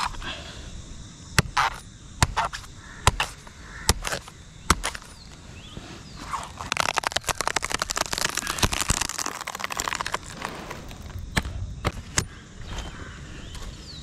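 A machete chopping into the leaf bases at the crown of a coconut palm: about six sharp strikes a second or less apart, then a few seconds of dense crackling and tearing as the fibrous leaf sheath is pulled away, and two more strikes near the end.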